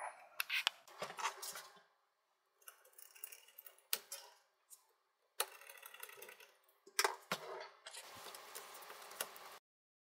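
Small screwdriver and metal cover plate being handled while screws are driven into a laptop's NVMe drive adapter: scattered light clicks and scrapes, with a steadier scraping for about a second and a half near the end that cuts off suddenly.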